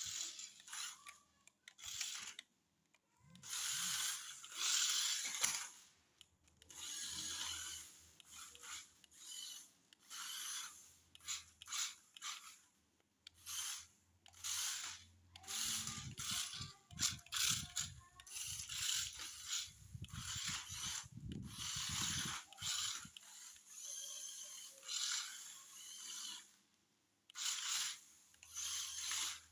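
Remote-control toy off-road car's small electric motor and gears whirring in repeated stop-start bursts of about half a second to two seconds each, with a heavier rumbling stretch partway through.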